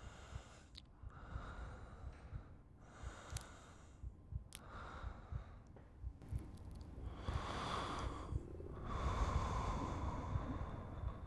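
Close, heavy human breathing in repeated in-and-out swells about a second apart. The breaths grow louder and longer in the second half, over a low crackle.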